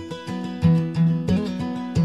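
Acoustic guitar played live, a few notes and chords plucked and left to ring.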